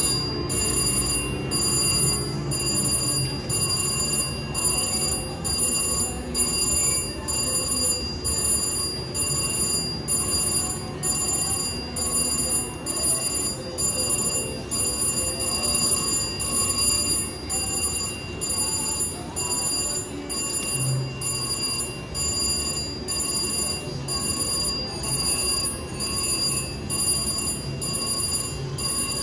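VGT Lucky Ducky Vegas Wilds slot machine playing its electronic game sounds: a bell-like chiming that repeats evenly, about three times every two seconds, as the reels spin and winning credits rack up.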